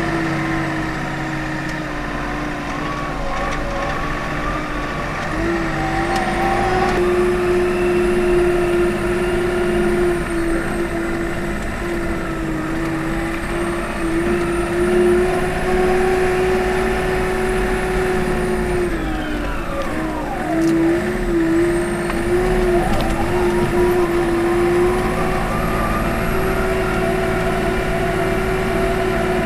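Komatsu WA40 mini wheel loader's diesel engine running steadily at working revs, heard from inside the cab. Its pitch sags briefly about two-thirds of the way through, then climbs back.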